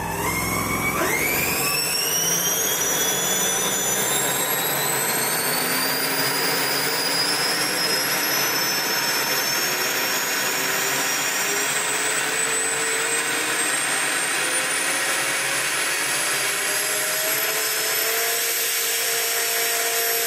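Twin-motor electric supercharger, two brushless motors spinning a centrifugal compressor impeller, spooling up under test. About a second in, a high whine shoots up in pitch, then keeps climbing slowly and levels off near the end, over a steady rush of air.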